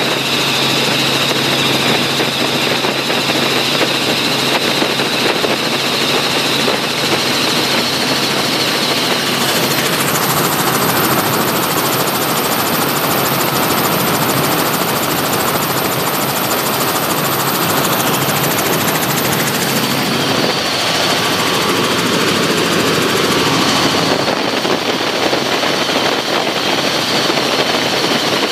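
Helicopter engine and rotor noise heard from inside the cabin, running loud and steady, with its tone shifting about ten seconds in.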